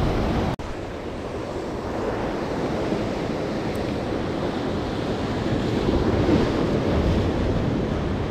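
Ocean surf washing and breaking against the boulders of a rock wall, a steady rush of water with wind buffeting the microphone. The sound cuts out for an instant about half a second in and swells a little about six seconds in.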